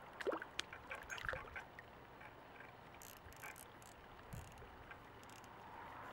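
Faint small splashes and drips of water from a hooked carp at the surface, clustered in the first second and a half, then mostly quiet with a few brief hissy splashes around the middle.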